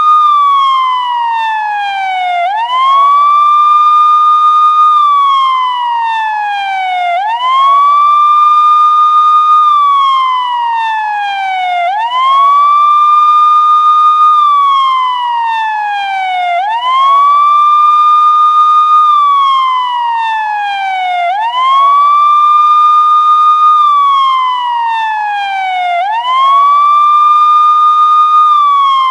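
Police siren wailing in a steady repeating cycle. Each cycle jumps quickly up in pitch, holds the high note for about two seconds, then slides slowly down; there are about six cycles.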